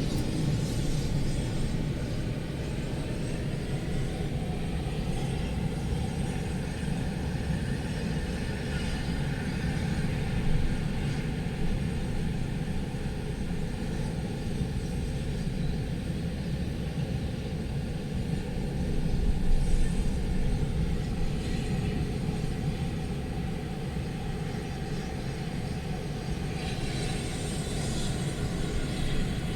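Strong storm wind buffeting the microphone: a steady low rumble, with a stronger gust about twenty seconds in and a hissing rush near the end.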